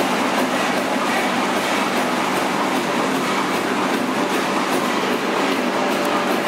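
Crossley horizontal stationary engine running at a steady pace, its heavy flywheel turning.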